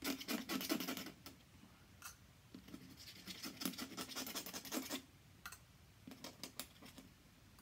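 Pen scratching across paper as ink strokes are drawn: a run of quick scratchy strokes at the start, another longer run from about three seconds in, then a few scattered strokes.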